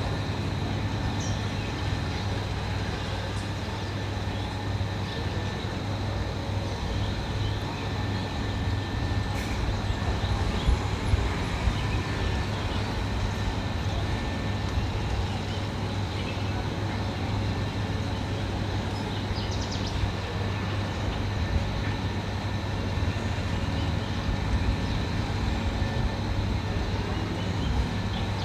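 Heavy construction machine's engine running steadily with a low hum, and a few brief knocks.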